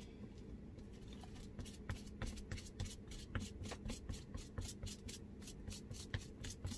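Faint handling sounds of a small brush and applicator dabbing sealer onto an air-dry clay spoon rest: light, irregular clicks and rubbing, about three or four a second.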